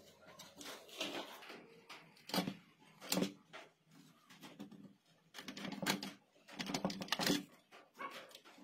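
Irregular clicks, knocks and rustles of hands handling wires and insulated spade connectors against the sheet-metal casing and circuit boards of an opened inverter welding machine.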